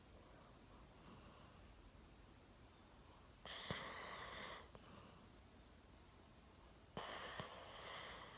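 A sleeping golden retriever snoring: two loud snoring breaths about a second long each, some three and a half seconds apart, after a fainter breath about a second in.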